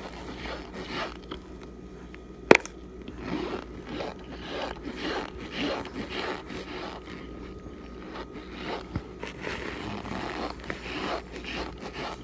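Close-miked biting and chewing of chunks of Argo cornstarch: a string of short, dry crunches, with one sharp click about two and a half seconds in.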